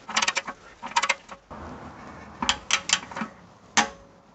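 Torque wrench ratchet with a 24 mm socket tightening an automatic transmission drain plug: several short runs of quick ratchet clicks on each swing, then a single click near the end.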